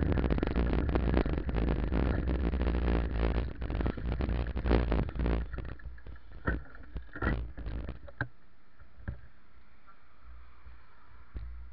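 Wind buffeting and road rattle picked up by a camera mounted low on a moving bicycle: a dense clatter over a low rumble that dies away about six seconds in. After that come a few separate knocks, then a faint steady hiss.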